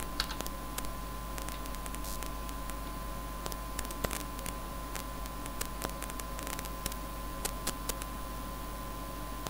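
Scattered light clicks of a computer keyboard and mouse while LaTeX source is edited and recompiled, over a steady electrical hum and hiss with a faint high whine.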